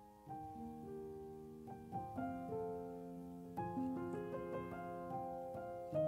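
Background solo piano music, with single notes struck one after another and left to ring over each other.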